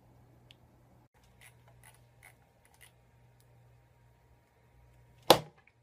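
Quiet room tone with a few faint soft clicks, then a single loud, sharp impact about five seconds in.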